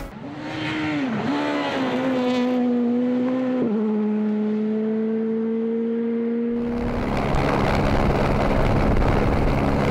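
Rally car engine at high revs, its pitch dipping and recovering, then dropping once at a gear change about four seconds in and climbing slowly as the car pulls through the gear. About seven seconds in the sound switches abruptly to a louder, rougher engine with heavy road noise.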